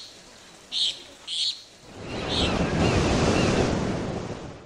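Ocean wave washing in: a rush of surf that swells over about a second, holds, and fades near the end. It is preceded by three short high chirps.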